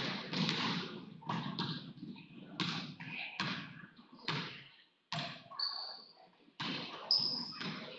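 Basketball bouncing on a hardwood gym floor, a string of sharp echoing bounces, about two a second at first and then more spread out, with a couple of short high sneaker squeaks in the second half.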